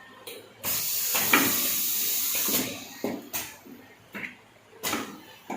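A loud hiss of released air from a cup filling and sealing machine lasting about two seconds, followed by several short, sharp puffs and knocks.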